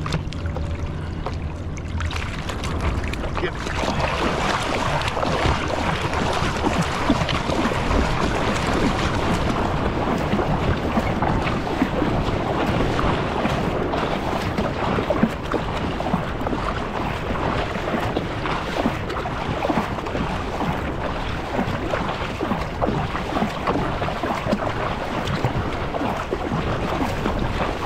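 Seawater splashing and rushing around a surfboard, with wind buffeting the microphone. The sound is steady and thickens a few seconds in.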